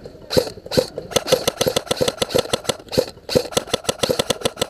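Airsoft rifle firing: two single shots, then two long strings of rapid shots at about eight a second, with a brief pause between them.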